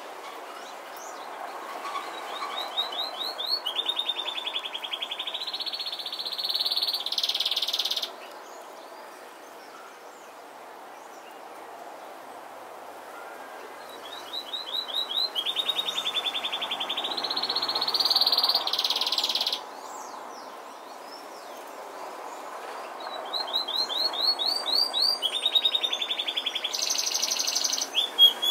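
A songbird singing the same song three times, each about five seconds long: a run of quick rising notes leading into a fast trill that climbs and ends in a higher, buzzy flourish. A steady hiss runs underneath.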